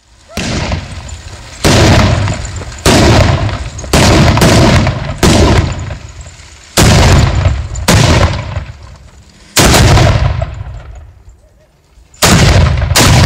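A battery of small black-powder cannons firing one after another: about ten shots, roughly a second apart, each dying away in a rumbling echo. The first shot is quieter, and there is a longer pause before the last two.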